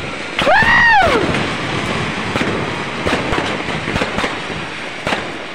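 Fireworks going off, with repeated sharp pops and crackles. About half a second in, a loud whistling tone rises and then falls, lasting just under a second.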